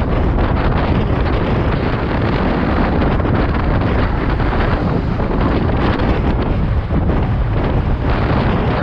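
Wind buffeting the microphone of a camera on a road bike riding at about 43 km/h: a loud, steady rumble with no let-up.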